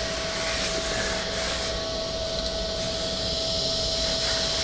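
Shop vacuum running with a steady drone and a constant tone.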